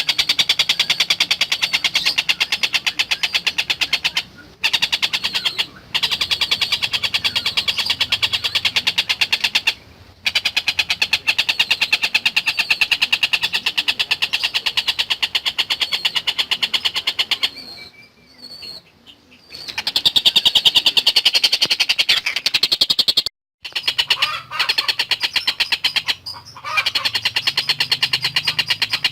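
Tengkek buto bird calling in a fast, continuous rattling chatter, the pulses too quick to count, broken by a few short pauses, the longest about eighteen seconds in.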